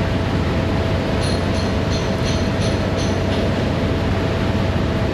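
A Ram's misfiring engine running at idle in the shop bay, a steady low rumble. The mechanic suspects a sticking or collapsed lifter. About a second in, a quick run of about seven short high beeps sounds, then stops.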